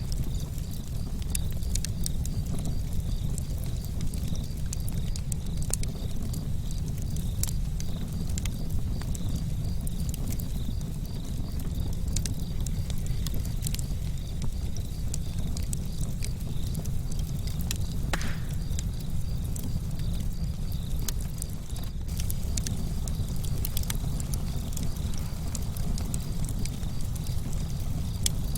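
Wood campfire burning: a steady low rush of flames with scattered sharp crackles and pops of burning wood, and one louder pop about two-thirds of the way through.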